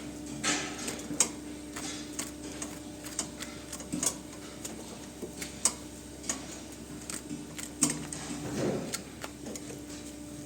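Irregular sharp clicks and scrapes of hoof trimming: tools cutting and paring a cow's hoof held up in a trimming crate, over a steady low hum.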